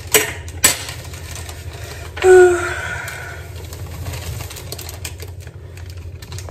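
Plastic bag of brownie mix crinkling and rustling as the powder is shaken out into a mixing bowl, with two sharp clicks in the first second. A little after two seconds in, a brief pitched sound, the loudest moment, rises over the rustling.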